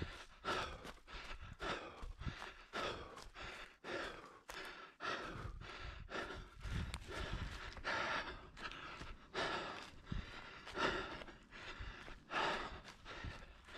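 A runner breathing hard in a steady rhythm, about two breaths a second, with footfalls on leaf litter and twigs underneath.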